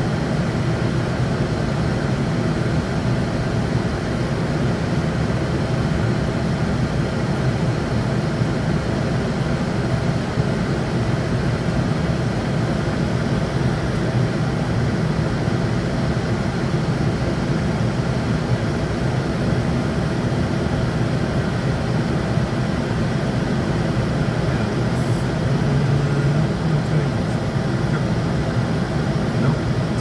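Steady airflow noise and engine drone inside a jet's flight deck at cruise altitude, with a low hum swelling slightly near the end.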